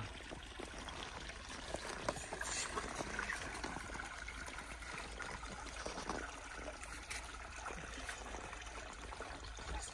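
Spring water trickling steadily in an ice-swimming hole, a quiet even wash of running water with a few faint clicks.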